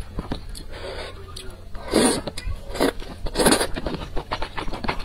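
Close-miked chewing and wet mouth sounds of someone eating spicy soup, with a few loud slurps about two, three and three and a half seconds in.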